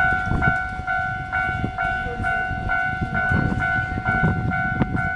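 Japanese railway level-crossing warning alarm ringing, an electronic bell tone repeating a bit over twice a second, with a low rumble underneath.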